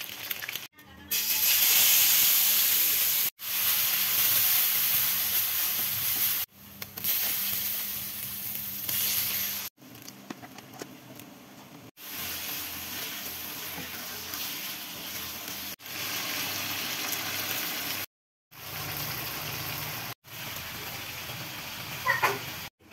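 Hot oil sizzling and spitting in a wok as food fries: whole peeled boiled eggs, then chicken hearts stir-fried with ground chili. It comes as a run of short clips with abrupt cuts. The sizzle is loudest and hissiest over the first several seconds, then quieter, with a short sharp sound near the end.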